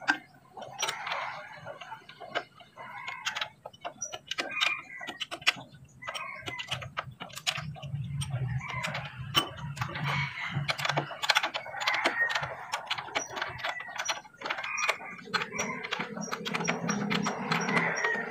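Ratchet wrench clicking and metal tools clanking while bolts are worked loose on a vehicle's rear axle and leaf-spring mount, in irregular runs of quick clicks. A low hum swells and fades twice in the background.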